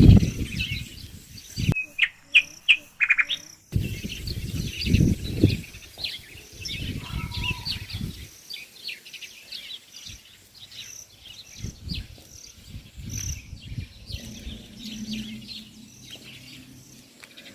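Many birds chirping and calling over one another in a dense, continuous chorus of short high notes, with bursts of low rumble in the first half.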